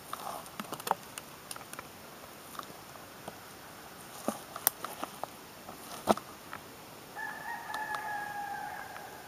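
Scattered sharp crackles and pops as a deer hide is pulled away from the carcass by hand, the membrane tearing loose. Near the end a rooster crows once, a held call about two seconds long, falling slightly in pitch.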